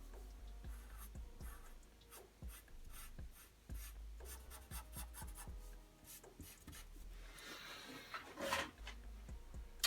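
Pencil sketching on paper: faint, scattered scratching strokes as lines are drawn, with a somewhat louder run of strokes near the end.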